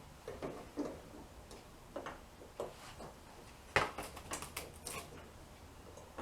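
Scattered light clicks and taps of small parts being handled at a VW Beetle's tail light, with a quick run of sharper clicks about four seconds in.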